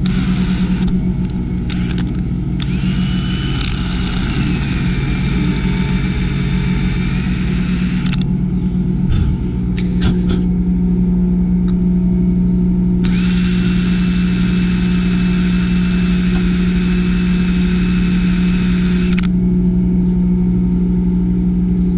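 Handheld drill boring into a stripped steel screw head to open the hole for a screw extractor, in two long runs of several seconds each with a thin steady whine. A steady low hum runs underneath throughout.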